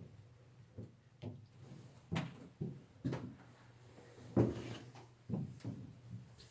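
Footsteps climbing stairs: irregular low thuds and knocks, one or two a second.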